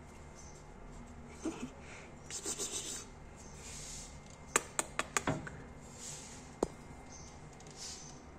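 A hand stroking a tabby cat's fur, with soft rubbing and rustling, and a quick run of several sharp taps about halfway through followed by one more a little later.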